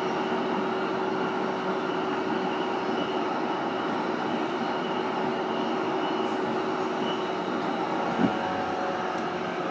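Running noise of a JR East E233-series electric train heard inside the cabin of a motor car: a steady rolling of wheels on rail, with one short thump about eight seconds in.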